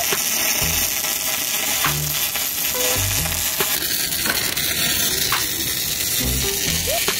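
Electric arc welding on steel plate: the arc gives a steady crackling sizzle as a seam is laid.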